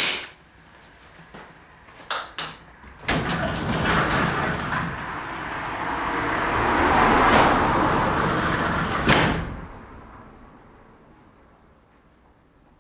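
A few sharp clicks, then a sliding door opens about three seconds in and lets in a swell of outdoor street noise. About nine seconds in the door shuts with a knock and the noise fades away. A faint steady high whine runs underneath.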